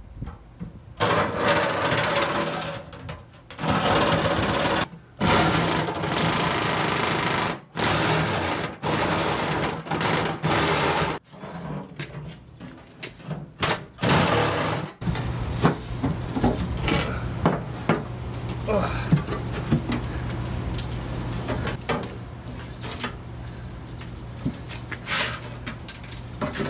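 Cordless reciprocating saw cutting through the old steel fuel tank in a series of bursts with short pauses, for roughly the first fifteen seconds. After that, quieter scattered clicks and knocks of sheet metal as the cut tank is handled and pulled apart.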